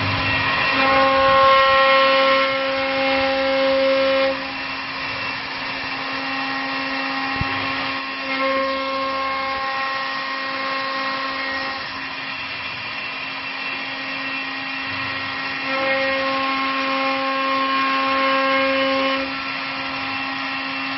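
CNC wood lathe with rotary carving spindles running while turning and carving wooden baluster columns: a steady motor whine with a fixed-pitch hum. It grows louder three times for a few seconds, then settles back.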